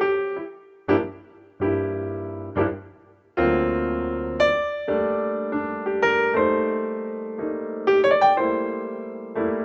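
Jazz piano background music: chords struck and left to ring out, with low bass notes underneath.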